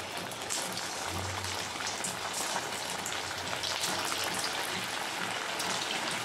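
Poha and potato balls deep-frying in hot oil in a kadhai: a steady crackling sizzle that grows a little louder as more balls are dropped in.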